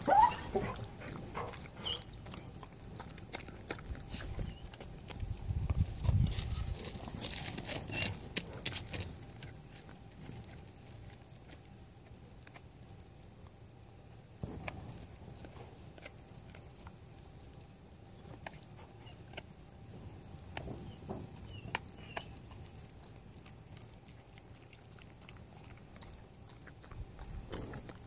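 A beagle chewing and gnawing a rawhide bone: rapid clicking and crunching, busiest and loudest over the first nine seconds, then sparser and quieter.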